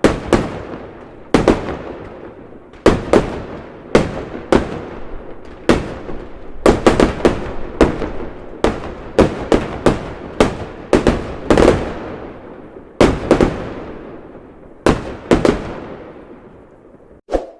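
Fireworks going off: an irregular string of about two dozen sharp bangs, each trailing off in a long echoing decay, coming thickest around the middle. The bangs stop abruptly near the end.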